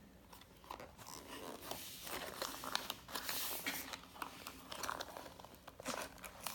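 Plastic toy packaging crinkling and tearing as it is worked open by hand, in irregular rustles with small clicks.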